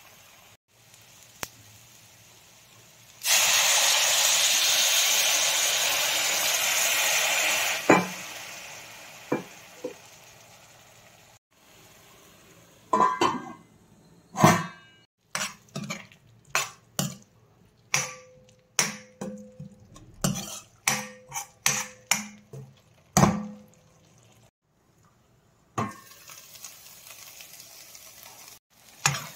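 Brinjal pieces being fried and stirred with a steel spoon in a stainless steel pan. A few seconds in, a loud sizzle runs for about four seconds and cuts off suddenly; later comes a run of quick spoon taps and scrapes against the pan, some with a short metallic ring, and a faint sizzle returns near the end.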